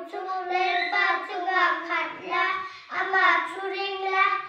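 Two young boys singing a song together in unison, held notes in phrases with brief breaks for breath.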